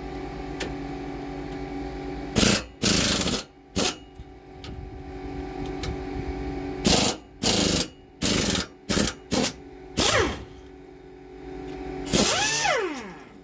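Pneumatic air ratchet running in a series of short bursts, undoing the sway bar mounting bolts on a Sprinter van chassis; the last, longer burst ends in a falling whine as the tool spins down. An air compressor hums steadily underneath.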